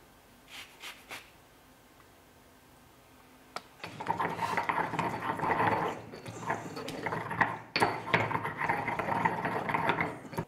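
Pestle grinding a wet paste of herbs, chili and olive oil in a stone mortar: a continuous rough scraping and grinding from about four seconds in. Before that, a few faint scrapes of a lemon being zested on a fine rasp grater.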